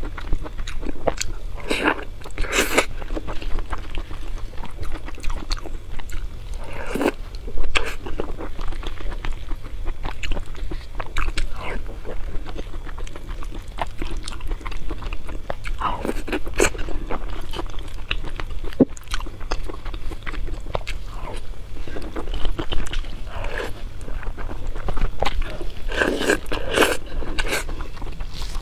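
Close-miked chewing and mouth sounds of a person eating a spoonful of rice, irregular wet clicks and smacks, with a metal spoon now and then clinking and scraping in a steel bowl.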